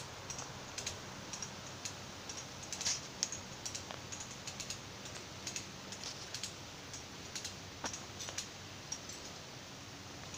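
Faint, irregular light clicks and metallic ticks from a come-along's ratchet and chain as it is hooked up and ratcheted to take up the slack.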